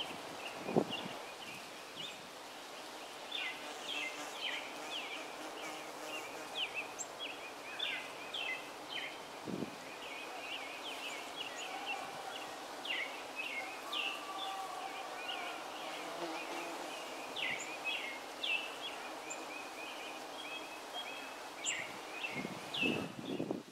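Bees working a flowering holly tree: a faint hum with the drone of single bees passing now and then, under many short high bird chirps. A few brief low thumps, the strongest about a second in and near the end.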